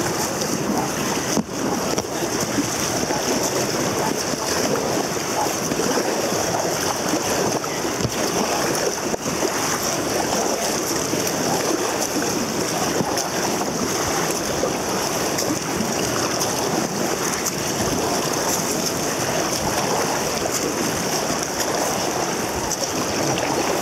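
Rushing water of river rapids around a raft, a steady churning noise.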